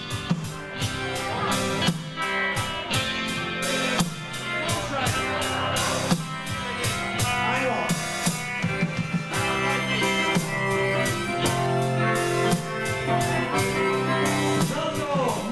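Live band playing guitars over a steady drum-kit beat.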